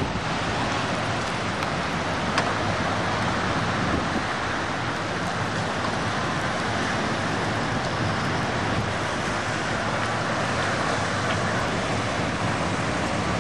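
Heavy rain pouring down steadily, mixed with the wash of traffic driving through the flooded road.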